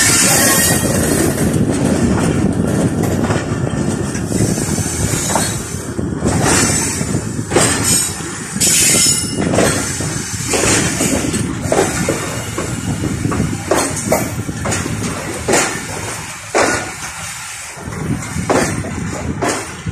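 Passenger train rolling through a station yard, heard from the coach window: wheels rumbling and clattering over rail joints and points, with many irregular knocks. A hiss at the start dies away within the first second.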